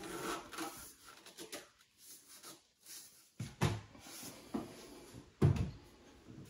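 Hands handling things inside a particleboard vanity cabinet: rubbing and scattered knocks as the capped PVC drain stub is gripped and parts bump the cabinet panels. Two sharper knocks come in the second half.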